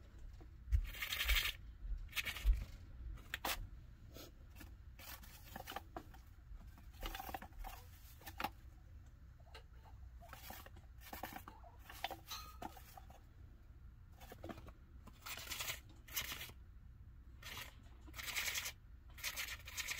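A chinchilla moving in and around its dust-bath tray: short, irregular scratchy rustles of fur and paws in the dust, in clusters near the start and near the end.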